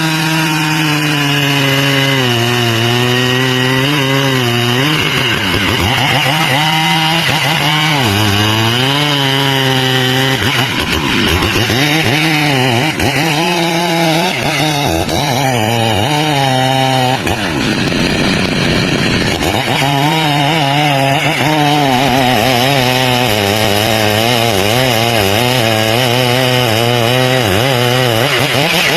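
Two-stroke chainsaw running hard through a cut. Its engine pitch repeatedly sags and climbs again as the chain loads up in the wood and frees.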